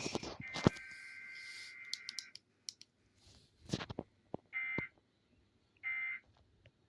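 Emergency Alert System weekly-test data tones. A steady electronic data burst of the SAME header code cuts off about two seconds in, with a few clicks around it. Then come two short, identical data bursts about a second and a half apart, the start of the end-of-message code.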